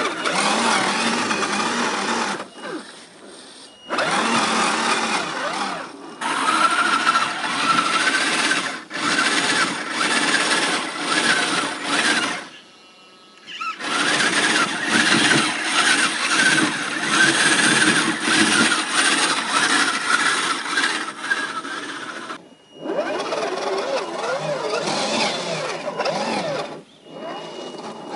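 Electric motors and geared drivetrains of 1/10-scale RC crawler trucks (an Axial SCX10 II Jeep Cherokee and an MST CFX-W Toyota Land Cruiser 70) whining as they claw up a steep dirt hill, the pitch rising and falling with the throttle. The whine drops away briefly three times.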